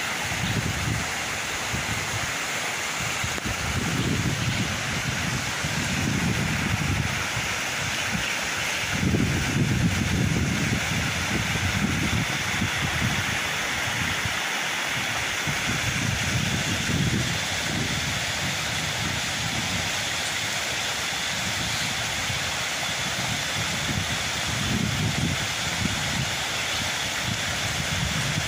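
River water running over a rocky bed, a steady rushing hiss, with irregular low gusts of wind buffeting the microphone.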